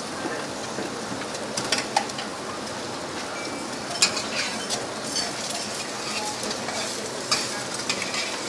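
Pork slices sizzling on a wire grill rack over a charcoal clay stove, a steady hiss, with metal tongs clicking sharply against the grate several times as the pieces are turned.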